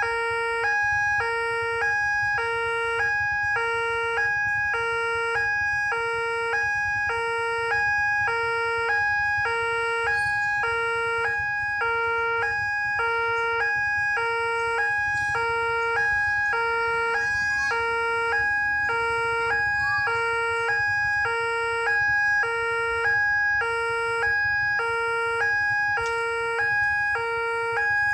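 Railway level-crossing warning alarm sounding with the barrier lowered, signalling an approaching train: an electronic two-tone pattern, a low tone alternating with a higher one about once a second, over a steady higher tone.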